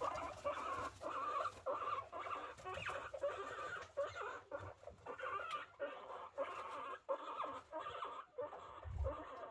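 Guinea pigs, a mother with newborn pups, making a continuous string of short, squeaky, clucking calls, several a second.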